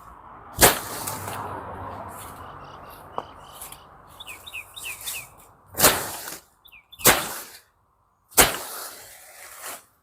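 Four sharp swishing strikes of a hand tool chopping through weeds, irregularly spaced a second or more apart. A bird chirps a quick run of notes about midway.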